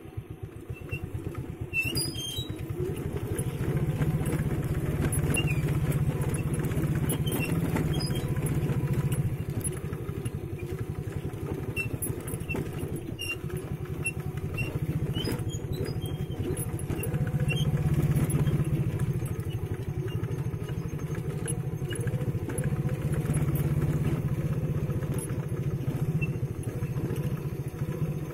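Motorcycle engine running as it is ridden along a rough stone and dirt track, its note swelling and easing with the throttle. Scattered light clicks and rattles sound over it.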